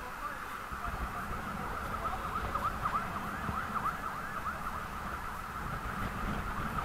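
Wind rumbling on the microphone of a camera riding on a bicycle, with a steady stream of short high squeaks that fall in pitch.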